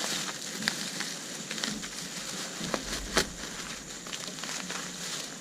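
Styrofoam packing peanuts rustling and crackling as hands dig through them in a cardboard box, with a sharp knock about three seconds in.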